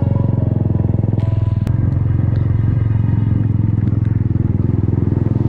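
Motorcycle engine running steadily while the bike cruises along a wet road, its firing pulses coming fast and even.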